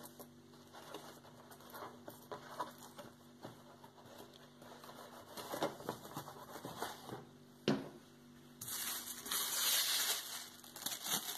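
Tissue paper rustling and crinkling as it is smoothed by hand and glued onto a cardboard cereal box with a glue stick, with small scattered clicks and one sharp tap about three-quarters of the way in. Near the end a louder crinkling lasts about two seconds as a fresh sheet of tissue paper is handled.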